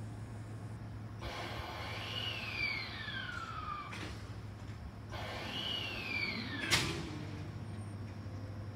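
Sanyo Electric Railway train's pneumatic sliding doors working at the platform, twice: each time a hiss of air with a falling squeal, ending in a knock that is sharp and loud the second time. A steady low hum from the stopped train runs underneath.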